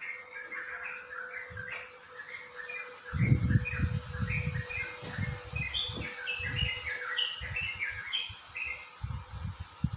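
Small birds chirping in quick, repeated twitters, with irregular low thumps from about three seconds in, the loudest just after they begin.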